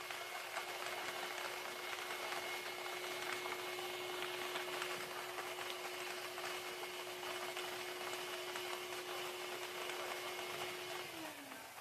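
Lottery ball drawing machine running: its blower hums steadily while the plastic balls tumble and click against the clear chamber walls. Near the end the blower winds down, its hum falling in pitch and the clicking dying away.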